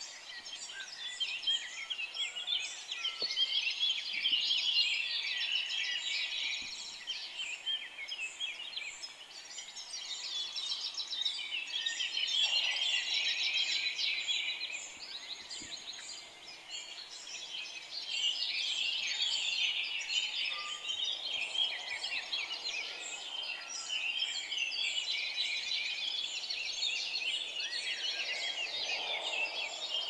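A morning chorus of many songbirds singing together: dense, overlapping chirps, whistles and trills that swell and ease in loudness, dipping for a moment about halfway through.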